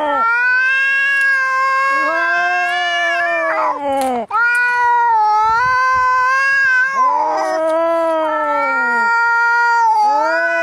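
Angry cats caterwauling in a fight: long drawn-out yowls that waver up and down in pitch, one running into the next, with a short break about four seconds in and a brief harsh rasp around seven seconds.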